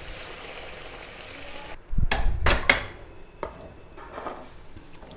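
Mutton stock pouring into a kadai of sautéed masala paste with a steady sizzling hiss. About two seconds in it breaks off into a few sharp clanks of metal pot and ladle, followed by fainter knocks.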